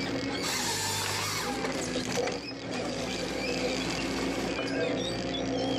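Six-wheel forestry harvester working: a steady engine drone with mechanical rattling and clicking over it, dipping briefly about halfway through.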